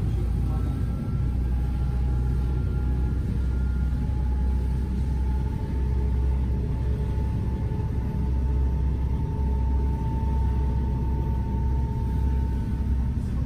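Passenger ferry's engines running, a steady deep rumble under way, with a faint high whine that slowly rises in pitch.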